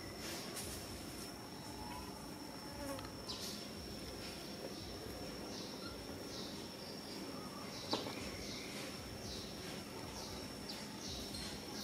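A steady high-pitched insect drone, with short falling chirps repeating over it and one sharp click about eight seconds in.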